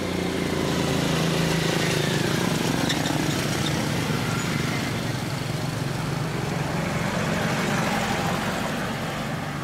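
Motor vehicle engine running close by at a steady pitch, easing off near the end.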